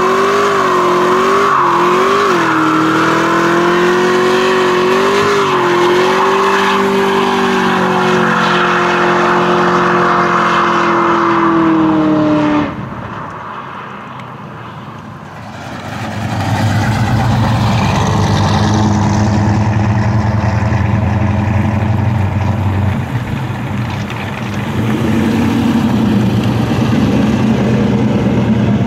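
V8 muscle car engine held at high revs during a smoky burnout, the note wobbling slightly, then cut off abruptly about twelve seconds in. After a quieter stretch, a lower, steady V8 rumble from a car moving slowly at low revs.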